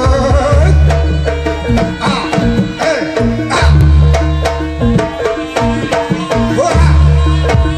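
Live Javanese gamelan music accompanying a jaranan horse dance: hand drums play a quick, busy rhythm over steady repeated metallophone notes. A deep boom that rings for about a second comes three times, and a melody line above slides and wavers in pitch.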